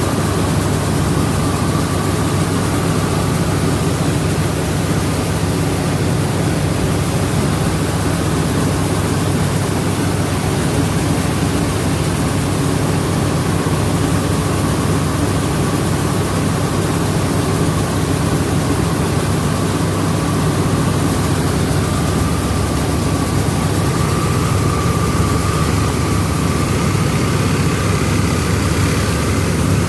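Rice milling machinery running steadily: a loud, constant drone with a thin whine above it.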